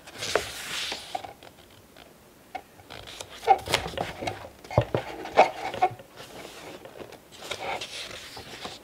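Pages of a glossy magazine being turned and handled: a paper swish at the start, then rustling with light clicks and taps from fingers on the paper, and another soft swish near the end.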